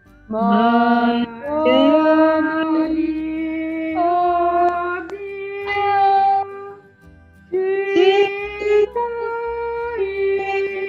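A woman's voice singing a slow hymn in long held notes, with short breaks between phrases.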